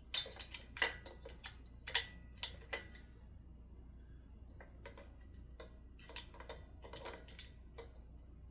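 Light metallic clicks and taps from ceiling fan parts being handled. There is a cluster of sharper ones in the first three seconds and fainter ones later.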